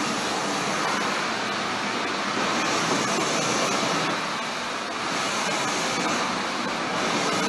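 Steady hiss and rush of steam in the cab of a BR Standard Class 9F steam locomotive, swelling and easing a little, with no distinct exhaust beats.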